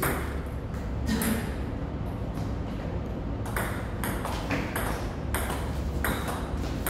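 Table tennis ball clicking off the paddles and the table in a rally: a hit or two early, a pause of about two seconds, then quick clicks about half a second apart from about three and a half seconds in.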